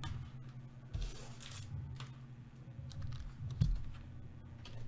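Light clicks and taps with a brief rustle about a second in and one louder knock about three and a half seconds in, over a steady low hum.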